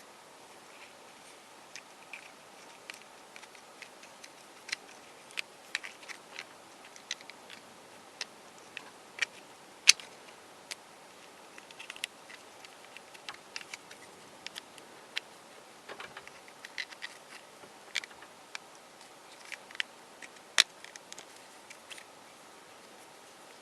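Irregular clicks and clacks of hard cast polyurethane resin puzzle pieces being handled, turned and fitted together, over a faint steady hiss; one sharper knock about ten seconds in.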